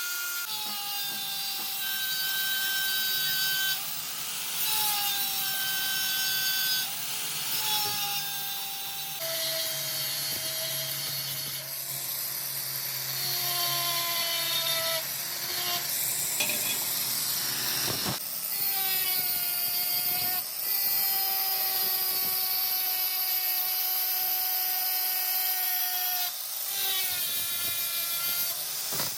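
A metal-cutting machine tool running under load, giving a whining tone that holds for a second or two and then shifts to a new pitch, again and again, with a few sharp clicks.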